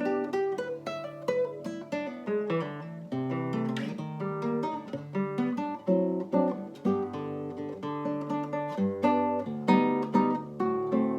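Acoustic guitar playing a fingerpicked instrumental: a quick run of plucked melody notes, several a second, over a moving bass line.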